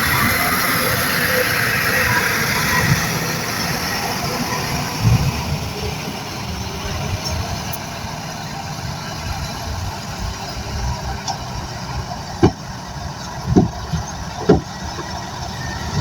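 Crawler bulldozer's diesel engine running with a steady low rumble and hiss. Three sharp knocks come near the end.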